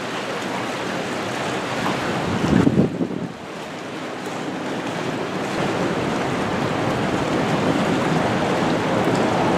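Wind buffeting the microphone over a steady rush of open sea, with one heavier gust about two and a half seconds in.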